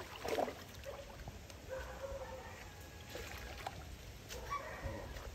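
Faint trickling and lapping of river water at the bank, where a hooked fish is stirring the surface near the line.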